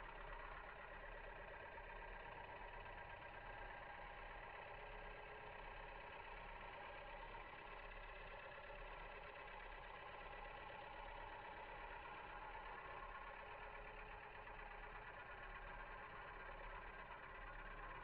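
Rockler Mini Excelsior wood lathe running steadily while a carbide turning tool cuts into a spinning Canary wood bowl blank.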